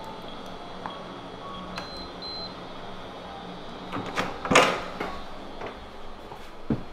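Electronic keypad door lock being worked. It gives short beeps as the keys are pressed, then a higher double beep. A loud mechanical clatter of the lock and lever handle follows about four and a half seconds in, and a sharp click of the latch near the end.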